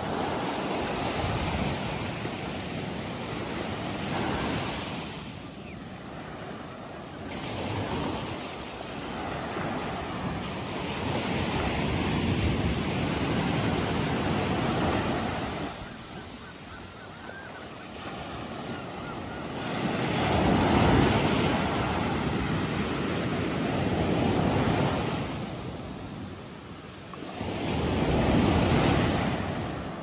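Small sea waves breaking and washing up a sandy beach, the surf swelling and fading every few seconds.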